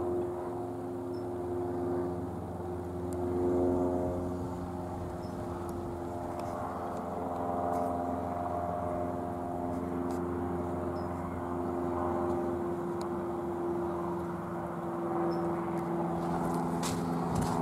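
A steady engine drone whose pitch shifts slowly every few seconds, with a few sharp clicks near the end.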